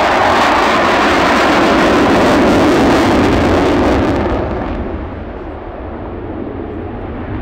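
F-16 Fighting Falcon's afterburning Pratt & Whitney F100 turbofan making a loud, steady jet noise as it passes in afterburner. About four seconds in, the sound fades and loses its hiss as the jet climbs away.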